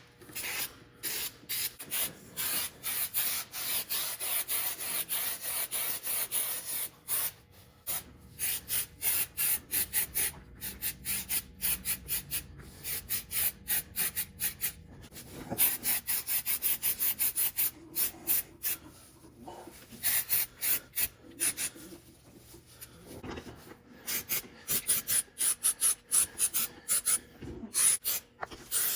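Rubberized undercoating being sprayed onto the underside of a trunk pan, a hissing spray in many short bursts, one after another with brief gaps.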